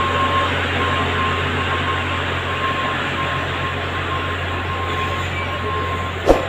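KRDI Cut Meutia diesel railcar giving a steady train rumble and hiss over a low hum, with a faint broken tone in the background. A single sharp clunk comes near the end.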